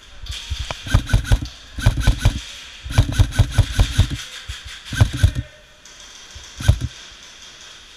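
Airsoft electric rifle firing close by in five bursts of rapid shots, the longest lasting about a second in the middle, with sharp cracks echoing off the surrounding walls.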